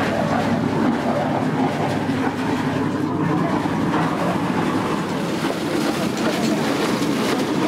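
Passenger ferry's engine running, a steady low rumble.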